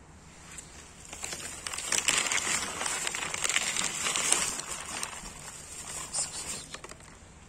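A cat crunching dry kibble: a dense run of crisp, crackling bites that builds about a second in and fades near the end.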